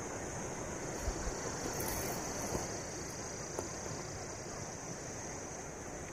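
Steady outdoor background: a continuous high chirring of insects over a low wash of wind, with a few soft clicks from the phone being handled.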